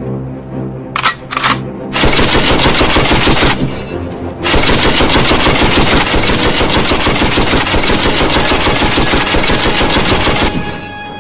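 Dubbed-in machine-gun sound effect: two single sharp shots, then a burst of rapid automatic fire about two seconds in, a brief break, and a long unbroken burst of about six seconds that stops near the end. Background music plays under it.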